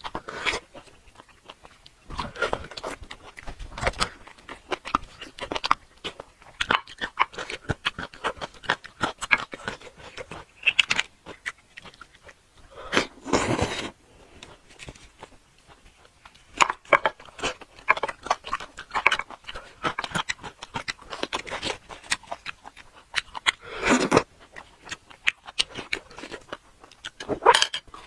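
Close-miked eating sounds of a person eating braised marrow bones: a steady run of wet chewing, lip smacks and clicks, with a few louder, longer sucks at the bone about halfway through and near the end.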